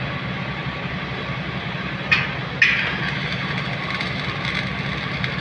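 Stick-welding arc struck on a steel frame: a short first strike about two seconds in, then the arc catches half a second later and runs on with a steady crackle and sizzle. A steady low hum runs underneath.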